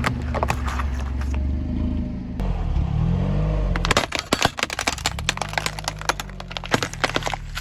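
Car engine running low and steady as the tyre rolls slowly over objects: a few cracks as plastic jelly cups are crushed, then, from about four seconds in, a quick run of snaps and crackles as a wall clock's plastic case and glass front break under the wheel.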